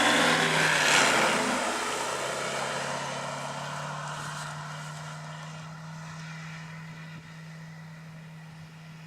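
Propeller engine of a light agricultural aircraft flying away after a low pass: a steady drone that fades gradually.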